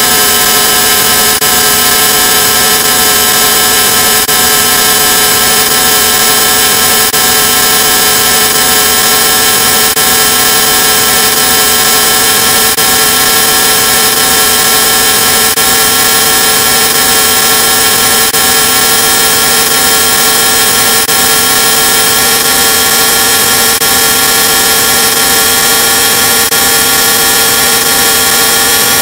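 Heavily distorted, effects-processed audio: a loud, harsh, unbroken noise with many steady held tones layered through it, like a jet-engine drone.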